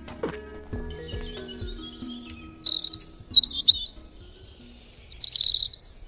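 Small birds chirping in quick, high twittering calls, starting about two seconds in, over soft background music that fades away.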